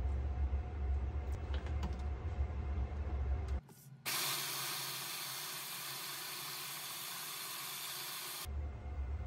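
Electric hand blender with a chopper bowl attachment running steadily for about four seconds, starting about four seconds in, blending a thick tofu paste. Before it, a low steady hum with a few light clicks against the plastic bowl.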